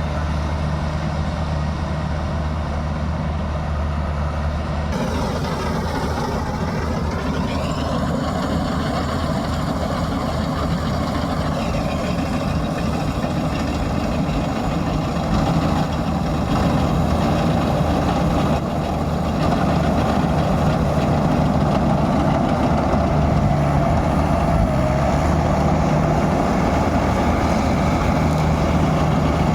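Claas Crop Tiger 40 combine harvester running steadily with a continuous engine hum. About five seconds in the sound grows noisier and fuller, and it gets a little louder about halfway through.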